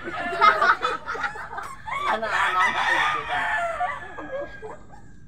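Rooster crowing: one long crow near the start and another, longer crow about two seconds in.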